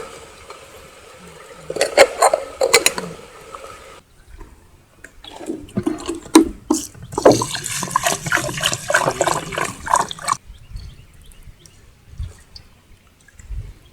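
A few sharp metal clinks, then several seconds of water pouring and splashing in a cooking pot. The splashing cuts off abruptly about ten seconds in, leaving faint outdoor ambience.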